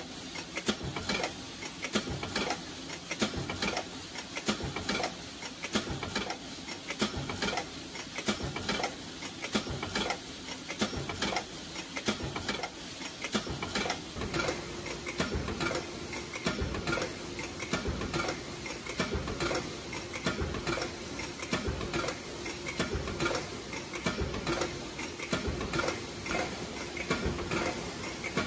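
Choctaek C1300 aluminium foil container press with a four-cavity mould running automatically at about 60 strokes per minute: a knock on each stroke, about once a second, over a steady mechanical clatter. A steady hum joins about halfway through.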